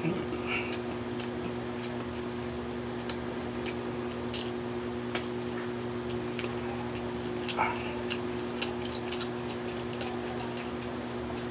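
A person chewing pork trotter adobo, with scattered small clicks and smacks of the mouth and a couple of brief louder sounds, over a steady hum and hiss.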